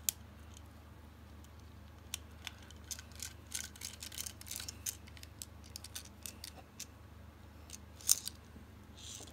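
Precision screwdriver turning small Torx screws into an aluminium OTF knife handle: a run of faint, irregular metallic clicks and scrapes as the bit works in the screw heads. There is a louder click about eight seconds in.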